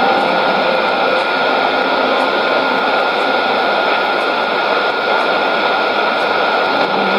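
Shortwave AM reception on a Sony ICF-2001D receiver tuned to 11835 kHz: dense, steady static and hiss with a thin high whistle, the broadcast swamped by noise as the signal fades.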